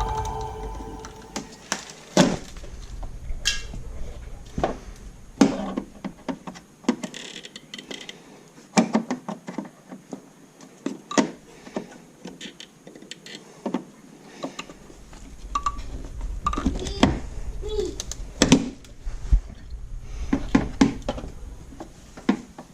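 Scattered metallic clinks, taps and knocks at irregular intervals, the sound of tools and ATV parts being handled during a teardown.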